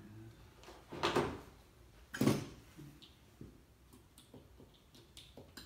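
Handling noise of a compound bow and tools at a metal tool chest: two short clattering knocks about a second apart, then a few lighter clicks.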